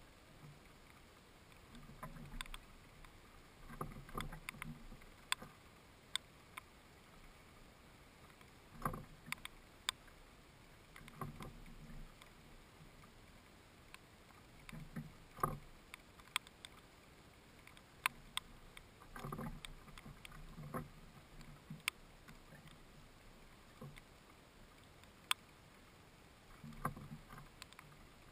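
House sparrow pecking at a fat ball in a net and shifting about on a wooden bird feeder: irregular sharp clicks and soft wooden knocks every second or two.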